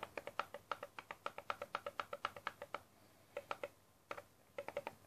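Laptop keyboard keys tapped in a fast run of about six a second, stopping about three seconds in, then two short flurries: repeated undo presses clearing a paint drawing stroke by stroke.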